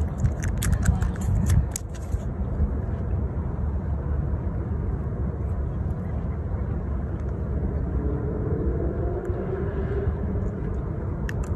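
A freshly caught fish flapping and slapping on rough concrete for about the first two seconds, and again briefly near the end as it is handled, over a steady low rumble of background noise.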